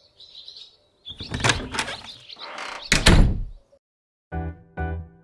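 Intro sound effects: brief bird chirps, then a loud noisy rush with several sharp hits, the heaviest about three seconds in. Near the end, piano-like chords start, struck about twice a second.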